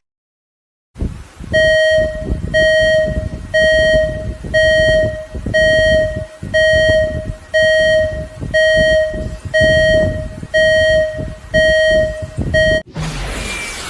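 An electronic beeper sounding steadily about once a second, about a dozen times, over a loud low rumble. Near the end it cuts off suddenly into a loud burst of noise.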